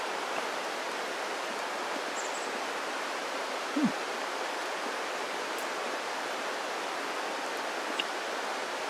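Steady rushing of running water from a stream, with a short, falling 'mmm' hum from a person chewing about four seconds in.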